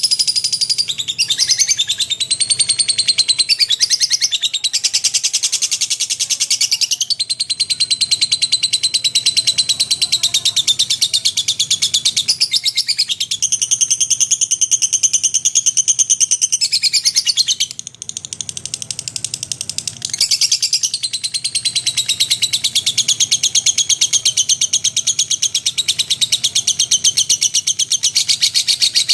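Lovebird chattering in full voice: a long, rapid, high-pitched trilling chatter that runs almost without a break, easing off briefly about two-thirds of the way through.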